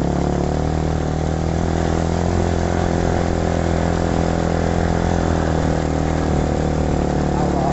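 Motorcycle engine running at a steady, even pitch while riding along.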